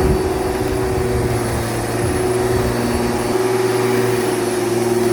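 Lawn mower engine running at a steady pitch with a constant hum.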